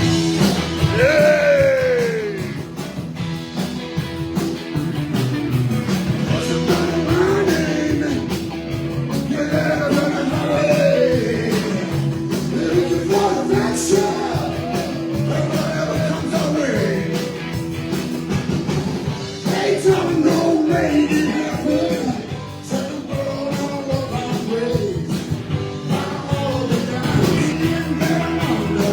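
Live rock-and-roll blues band playing, with a lead line bending up and down in pitch over steady backing.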